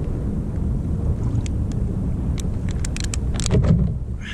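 Wind buffeting the microphone, a steady low rumble, on a kayak out on open water in a breeze of about 10 knots. From about a second in there is a scatter of small sharp clicks, thickest near the end, with one slightly louder knock.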